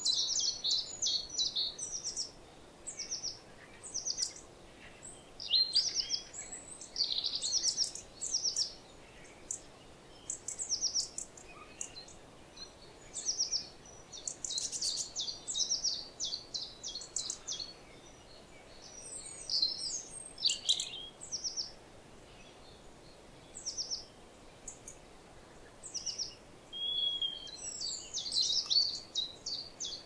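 Several small songbirds chirping and singing, with high, quick trills and chirp series coming in clusters every second or two and brief lulls between them. A short, steady whistled note sounds near the end.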